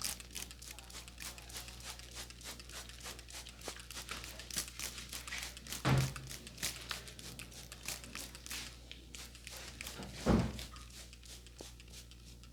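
Close-range crackling and crinkling of a barber's handling on hair and skin, with two dull thumps about six and ten seconds in.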